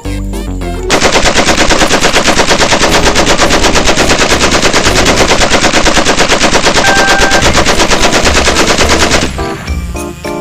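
Rapid automatic gunfire sound, about ten shots a second, starting about a second in and stopping suddenly after roughly eight seconds, over background music.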